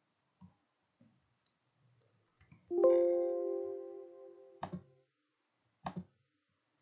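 Windows 10 alert chime sounding as a warning dialog box pops up: a single chord that starts suddenly and fades away over about two seconds. Two mouse clicks follow near the end.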